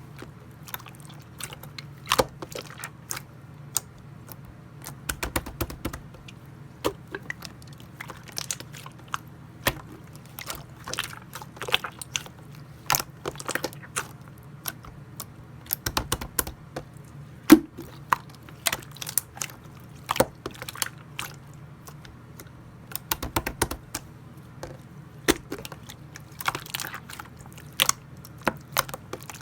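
Clear slime being worked by hand, giving irregular sticky clicks and pops as it is squeezed and stretched, over a steady low hum.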